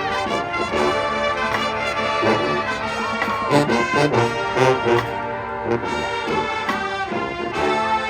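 A marching band playing, brass section loud over regular drum hits.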